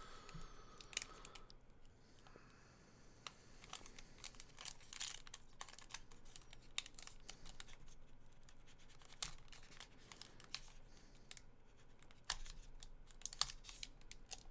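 Faint crinkling and crackling of a foil trading-card pack wrapper being worked open, in scattered small crackles and ticks; the pack is hard to open.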